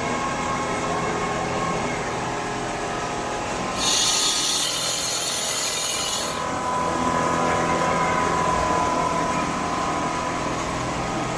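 Quilting machine running with a steady mechanical hum, with a loud hiss lasting about two and a half seconds midway through.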